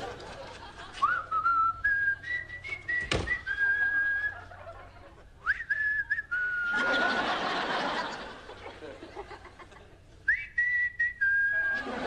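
A man whistling a tune in three short phrases of held notes, with pauses between them. A single sharp click comes about three seconds in, and a swell of studio-audience laughter follows the second phrase.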